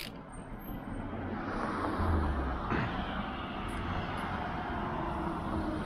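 Bicycle rolling along a brick-paved cycle path: a steady rushing noise that builds over the first second or so as the bike gets under way, then holds.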